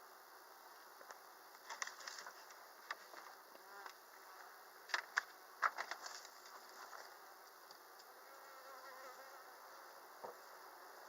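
Honeybees buzzing around an open hive, a steady faint hum of many bees. Several sharp clicks and knocks stand out, clustered about two seconds in and again around five to six seconds in.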